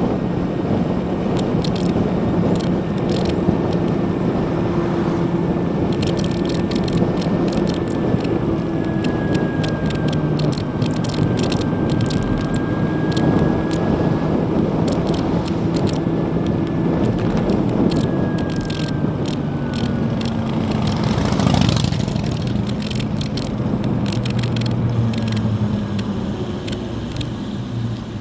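2016 Zero DSR electric motorcycle riding along a town road: steady wind and tyre noise with a faint high electric-motor whine whose pitch drifts with speed, and frequent small rattling ticks. A louder rush comes a little past two thirds through, and near the end the pitch drops and the noise eases as the bike slows.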